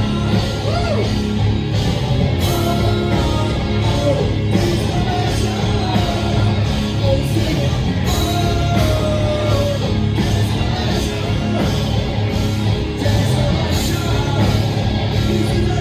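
A rock band playing live, recorded from within the crowd: electric guitar and drums keeping a steady beat, loud and continuous.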